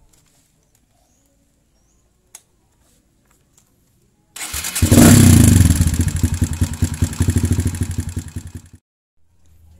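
Kawasaki KLX 150 motorcycle's single-cylinder four-stroke engine being started: it catches about four and a half seconds in with a quick rev, then runs with a lumpy, pulsing beat that eases off a little before stopping abruptly near the end.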